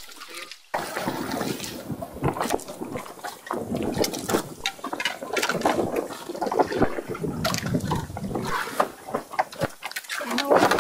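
Water splashing and sloshing irregularly, with many short sharp splashes and knocks.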